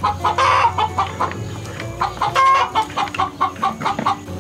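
Hens clucking loudly in a quick run of short, repeated calls: the "egg sounds" hens make around laying.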